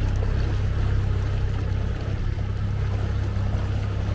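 Small outboard motor pushing a dinghy along at a steady speed, a constant low drone with water rushing past the hull.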